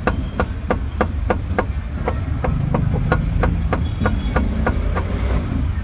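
Cleaver chopping meat on a wooden block: sharp, even strokes at about three a second, over a low background rumble.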